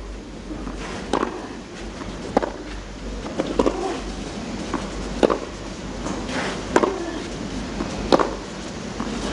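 Tennis rally on a clay court: racquets striking the ball, a sharp knock every second or so, with the ball's bounces between, over steady background noise.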